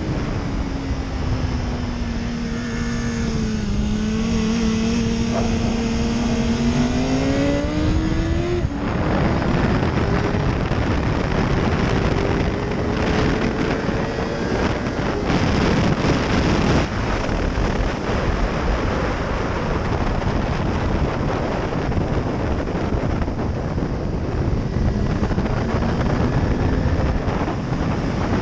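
BMW S1000RR inline-four engine under heavy wind rush at track speed. The revs dip, then climb, drop sharply at a gear change about nine seconds in, and climb again. After about seventeen seconds the engine note sinks under the wind.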